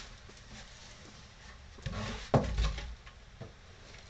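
Cardboard packaging and plastic-wrapped parts being handled while a model airplane kit box is unpacked, with a sharp dull thump a little over two seconds in, followed by brief rustling.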